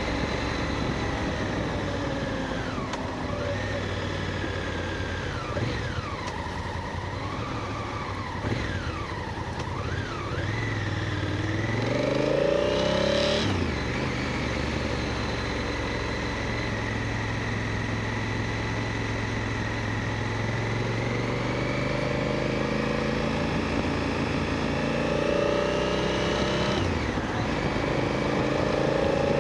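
Motorcycle engine running under way. The revs climb from about ten seconds in and drop sharply at a gear change a little after thirteen seconds, then hold steady, with another short rise in revs near the end.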